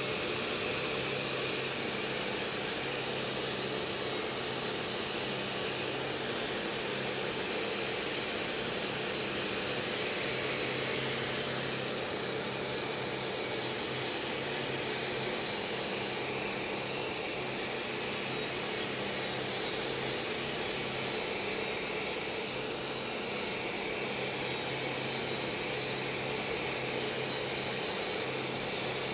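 A vacuum's motor runs steadily while short scraping strokes come over it again and again, many per second at times.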